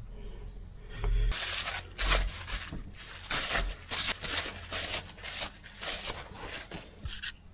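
Paper towel wiping the oily metal faces of a hydraulic swing motor, a run of quick, rough rubbing strokes, two or three a second.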